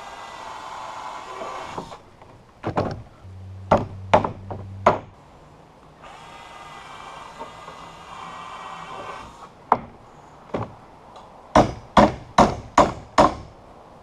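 Cordless drill boring pilot holes through hard alder battens in two short runs, then hammer blows driving 16-penny nails into the battens: a few scattered strikes between the drill runs and a quick series of about six strikes near the end.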